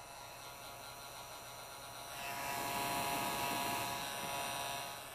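Electric heat gun running, its fan motor giving a steady whirring hum with a hiss of blown air, as it heats tint film on a headlight lens. The sound swells louder for a couple of seconds from about two seconds in, then eases back.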